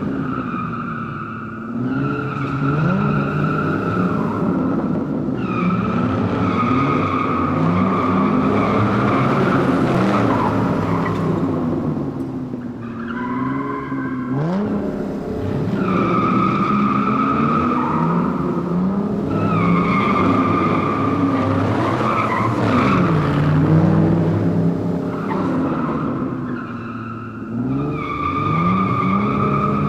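Race car engines revving, their pitch climbing and dropping again and again through the gears, under a steady high-pitched squeal of tyres skidding. The sound dips briefly about a second in, around the middle and near the end.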